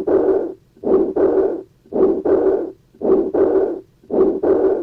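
Stethoscope recording of a heart with combined aortic valve disease, aortic stenosis together with aortic regurgitation. Each heartbeat carries two murmurs in quick succession, one in systole and one in diastole, a to-and-fro pattern repeating about once a second.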